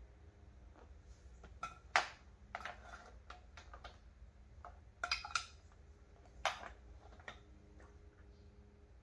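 Irregular hard clinks and knocks of tools and parts being handled at the brake work. The loudest knock comes about two seconds in, with a quick cluster of clinks around five seconds.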